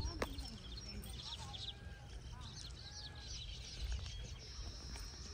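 Small birds chirping: many short, high calls scattered throughout, with a few lower whistled notes and a thin steady trill near the end.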